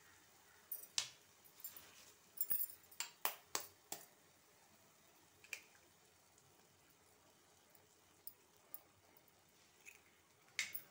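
Eggshells being cracked and broken open over a frying pan: a cluster of sharp cracks and taps in the first four seconds, one more about five and a half seconds in and another near the end.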